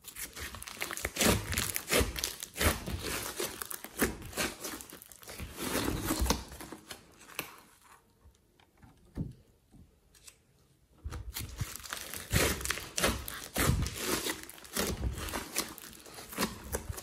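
Thick slime mixed with clay and glitter being squeezed and kneaded by hand, giving runs of crackling, popping and squelching. There is a quieter pause in the middle, then the crackling starts again.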